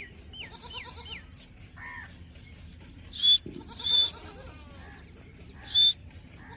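Animal calls: a run of short, high calls sliding downward, about three a second. Then three loud, shrill calls about three, four and six seconds in.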